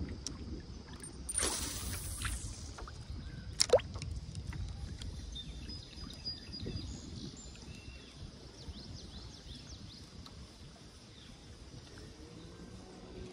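Lake water lapping and sloshing against a plastic kayak hull, with a low wind rumble. About a second and a half in, a hissing splash as the cast lure lands, and a couple of seconds later a single sharp click.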